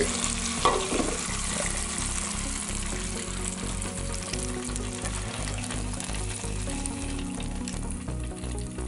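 A hot air-fried sausage sizzling in the pulled-out air fryer basket, the sizzle thinning out over the seconds, with background music underneath.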